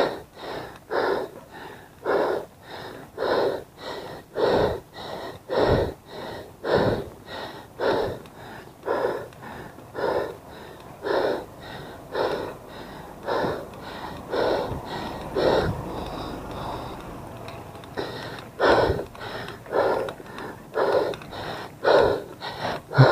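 A cyclist's hard, rhythmic breathing from the effort of pedalling, about two breaths a second. The breathing pauses for a couple of seconds about two-thirds of the way through, then picks up again.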